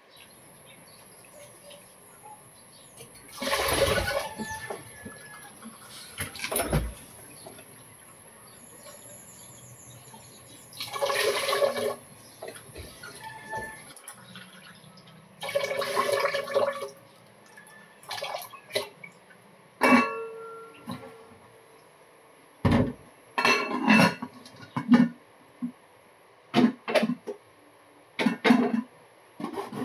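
Water splashing and sloshing as rice is washed by hand in a stainless steel bowl, then liquid poured through a mesh strainer into a glass bowl, in separate bursts of about a second each. In the second half come a series of short sharp clinks and scrapes of a metal spoon against a bowl.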